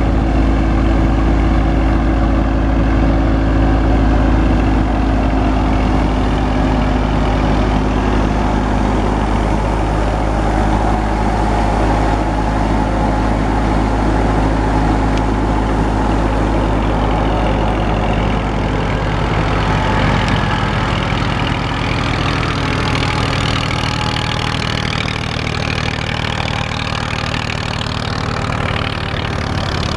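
Massey Ferguson 240 tractor's three-cylinder diesel engine running steadily under load, driving a wheat thresher, with the thresher's machinery turning along with it.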